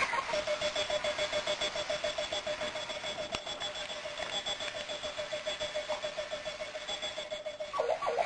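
Runaway alarm clock ringing: a fast, even beeping on one pitch, several beeps a second, that stops near the end and gives way to a brief warbling sound.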